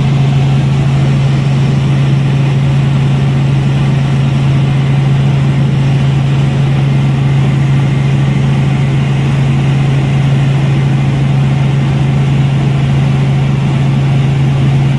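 Robinson R44 Raven I helicopter in flight: its engine and rotors make a loud, steady drone with a strong low hum and no change in pitch.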